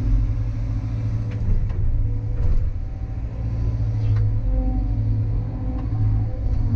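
CAT 320 hydraulic excavator working, heard from inside its cab: a steady low diesel drone with tones above it that shift as the boom and bucket move through the dig. There are a few light clicks and knocks along the way.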